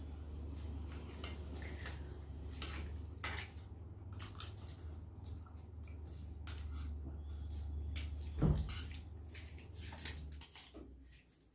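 Cutlery clicking and scraping against plates during eating, in short scattered clicks. A louder thump comes about eight seconds in, and a steady low hum underneath stops near the end.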